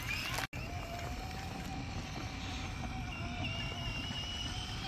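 Small electric motor of a child's plush animal ride-on toy whining steadily as it rolls across asphalt, over a low rumble. The sound drops out briefly about half a second in.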